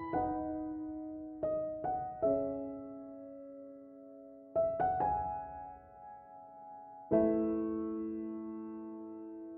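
Slow, gentle solo piano background music: single notes and chords struck a few seconds apart, each left to ring and fade.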